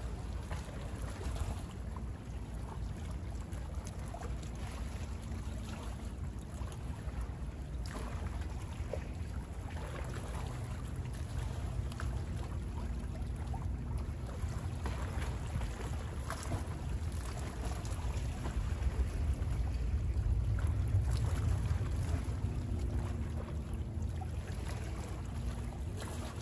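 Small waves lapping at the water's edge, with a low wind rumble on the microphone that swells for a few seconds past the middle. A faint, steady distant boat engine hum joins in the second half.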